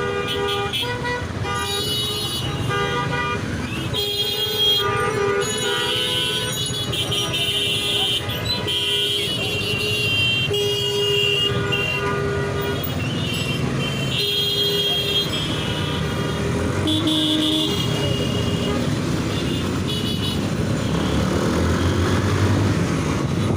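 Busy road traffic with many vehicle horns honking in short, repeated blasts over a steady rumble of engines and road noise.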